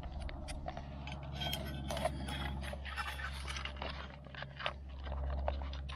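Foil MRE retort pouch crinkling and scraping as it is squeezed and folded to push the chilli con carne out into a metal pot, in many short irregular crackles.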